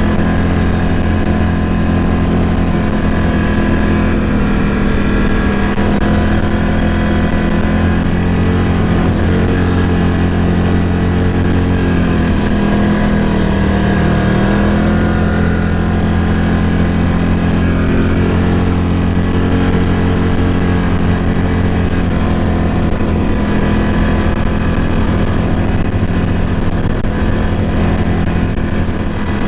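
ATV engine running steadily at low speed while crawling along a rough woods trail, its pitch dipping briefly about halfway through and then picking back up.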